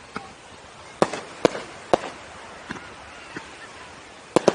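Fireworks bursting overhead: a string of sharp bangs at uneven intervals, with two loud reports in quick succession near the end.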